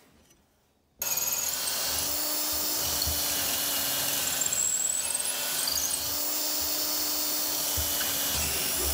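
Cordless drill boring a hole into an oak board. It starts abruptly about a second in and runs at a steady pitch.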